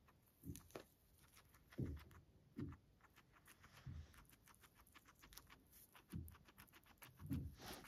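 Guinea pig chewing sprigs of fresh leafy greens: faint quick crunching clicks, with a few soft low thumps spaced about a second apart.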